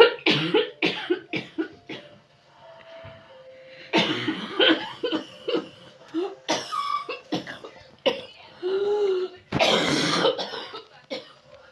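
A person coughing in harsh fits: a quick run of coughs at the start, another run about four seconds in, and one loud cough near the end. It is the barking cough of someone who is ill.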